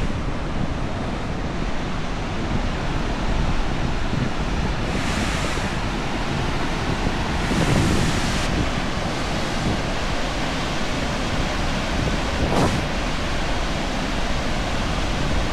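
Steady rush of a waterfall's double cascade, mixed with wind noise on the microphone that swells in gusts about five and eight seconds in. A single short knock about twelve seconds in.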